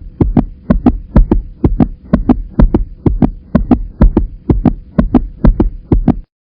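Fast heartbeat rhythm: pairs of sharp low thumps, about two pairs a second, over a faint steady hum. It starts suddenly and stops just before the end.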